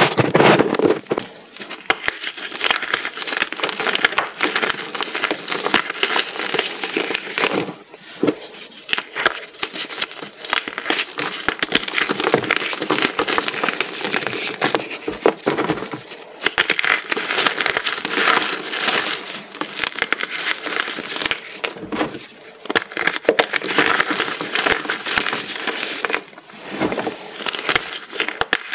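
Small pieces of reformed gym chalk being crushed: dense, continuous crunching and crackling with many sharp snaps, easing off briefly a few times.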